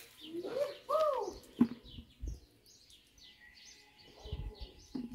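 Birds calling outdoors: a louder arching call about a second in, then many quick high chirps. A sharp thump comes just after the arching call and is the loudest sound, with a few duller knocks later.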